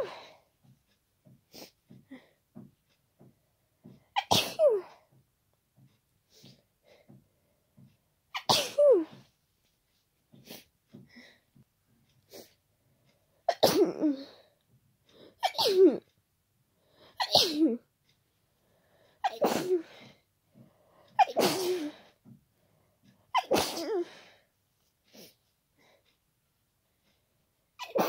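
A run of about eight wet, forceful human sneezes from a head cold. Each one ends in a voiced cry that falls in pitch. The first few are about four seconds apart, and from about a third of the way in they come every two seconds or so.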